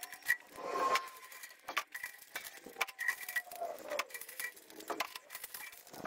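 Copper strips and tubes salvaged from solar water heater panels clattering and clinking as they are handled and dropped into a plastic tub, with repeated sharp knocks and short metallic rings.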